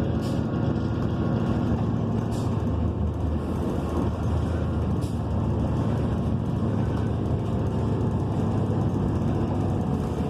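Cabin sound of a 2014 New Flyer XN40 transit bus, its Cummins Westport ISL G natural-gas engine running with a steady low rumble, heard from inside the bus. A few faint clicks or rattles come through, about three times in the first five seconds.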